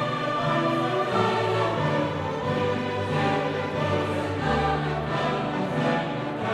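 Background music: a choir singing slow, held chords over an orchestra.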